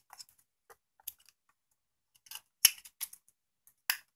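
Sparse light clicks and taps of metal on metal as a small power transformer's stamped metal end cap is handled and fitted over its laminated iron core, the loudest a little past halfway and near the end.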